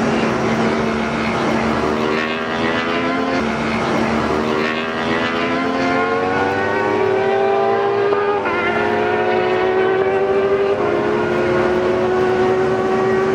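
Racing motorcycle engines accelerating through the gears: the engine note climbs steadily, then drops at each upshift, three times, over a steady background hum.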